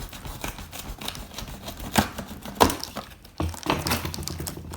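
Cardboard toy packaging being cut open and handled: a run of small clicks, scrapes and rustles, with two sharp snaps about two seconds and two and a half seconds in.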